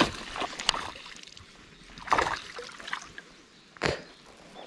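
Water splashing in several short, sudden bursts, the first and the one about two seconds in the loudest.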